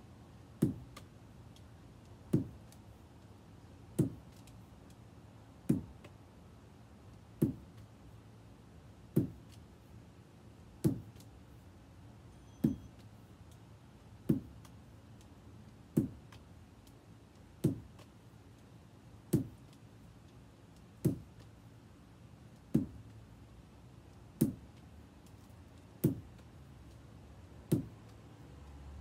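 Lacrosse wall-ball drill: a rubber lacrosse ball thrown from the stick knocks sharply against a wall about every 1.7 seconds, seventeen even knocks in a steady rhythm.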